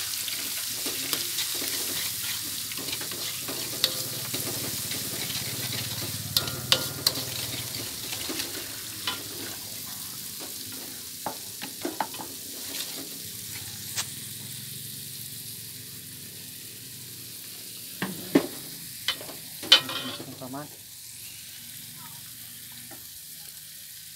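Water poured into a hot aluminium pot of fried shallots and garlic, sizzling and hissing at first, the sizzle slowly dying down as the pot settles. Scattered sharp knocks of utensils on the pots, with a loud pair later on.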